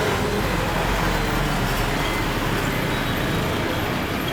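Airliner jet engines running, heard as a steady rushing noise with a faint high whine.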